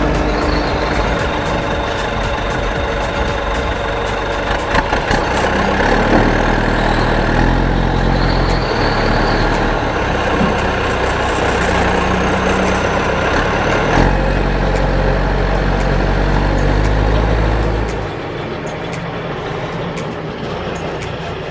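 Heavy-vehicle engine sound effects, a backhoe loader's diesel engine running steadily, with low tones that step up and down in pitch. The sound drops a little in level about eighteen seconds in.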